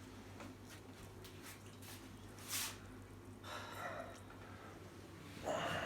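A person's breath sounds over a faint steady low hum: a short sniff-like breath about two and a half seconds in, then a longer breath or sigh a second later and another near the end.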